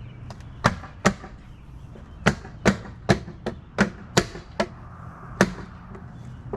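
Plastic Aero wheel cover being knocked and pressed onto the wheel, about ten sharp snapping knocks in an uneven run as its clips seat.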